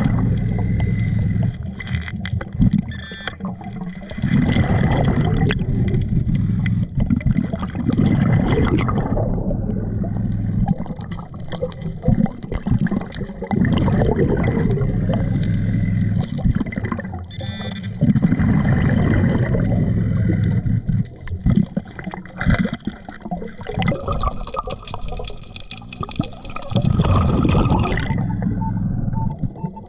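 Scuba diver breathing through a regulator underwater: rushing, gurgling bursts of exhaled bubbles, several seconds long and recurring every few seconds, with quieter spells between breaths.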